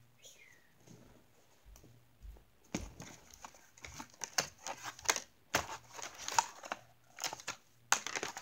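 Doll packaging crinkling and rustling as it is handled and pulled apart, in irregular quick crackles that start about three seconds in.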